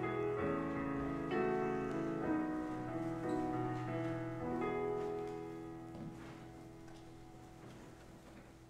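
Keyboard accompaniment playing held chords that change about once a second, then fading away over the last few seconds as the piece ends.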